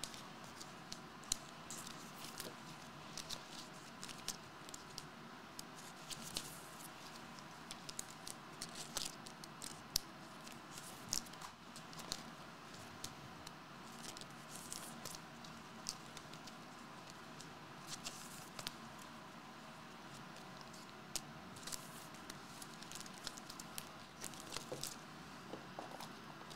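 Faint, irregular clicks and light rustles of trading cards being handled: flicked, slid against one another and set down on a rubber play mat.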